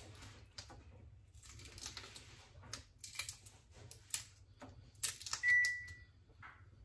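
Raw prawn shells crackling and clicking as they are peeled and pulled apart by hand, in several spells of crisp rustling with sharp ticks. About five and a half seconds in, a short steady high beep sounds once.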